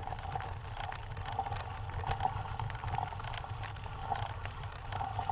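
Mountain bike rolling over a loose gravel and stone track, heard from the rider's own bike: a steady rumble of tyres on gravel with many small clicks and rattles.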